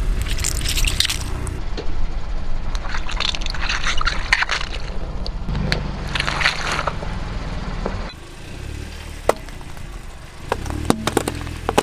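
Car tyre rolling slowly over gel-bead squishy toys with a low steady engine rumble, the toys bursting in three wet, crackling squishes as the beads spray out. About eight seconds in, the tyre rolls onto raw carrots and snaps them with a few sharp cracks.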